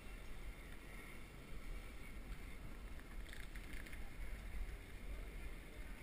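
Wind buffeting the microphone of a bicycle rider's head-mounted camera, heard as a steady low rumble, with a few faint clicks about three seconds in.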